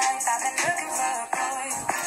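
Background pop music with a sung vocal line over a steady beat.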